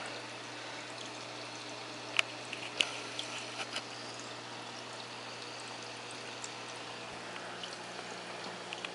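Reef aquarium's filtration running: water trickling steadily from the hang-on-back filter outflows over a low steady hum from the pumps, with a few light clicks about two to four seconds in.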